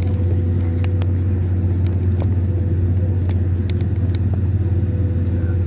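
Steady low rumble inside the cabin of a Boeing 767-300 taxiing on its engines, with a faint steady hum above it and scattered faint clicks.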